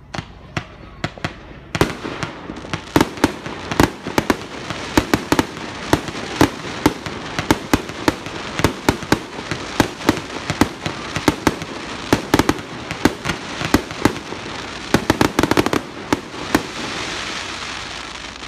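Fireworks display: a dense, irregular barrage of aerial shell bursts, several sharp bangs a second, after a few scattered reports at the start. The bangs stop near the end and give way to a steady hiss that fades.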